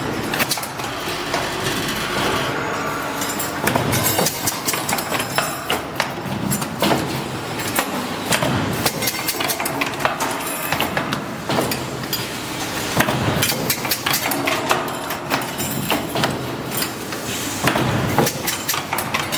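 Automatic hydraulic paint roller handle assembly machine running, with a busy clatter of rapid, irregular clicks and knocks over a steady mechanical noise.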